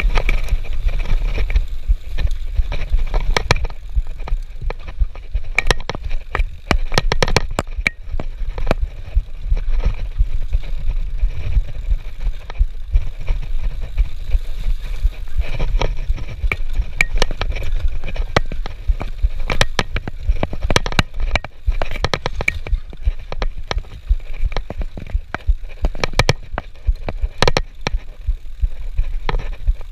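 Mountain bike riding a rough dirt singletrack: a steady low rumble of wind on the microphone, broken by frequent sharp clicks and rattles from the bike jolting over bumps, coming in quick clusters.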